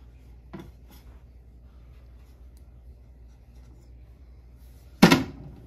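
Faint handling noises of a plastic toy kitchen: the toy microwave's door and a plastic cup being moved. One short, loud, sharp sound comes near the end.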